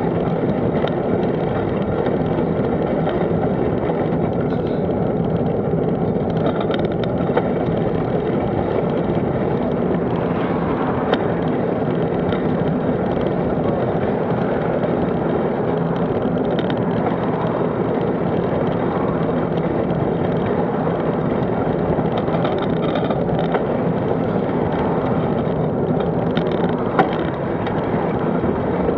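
Steady road and wind noise from travelling along a road, with oncoming traffic passing, among it a lorry about halfway through.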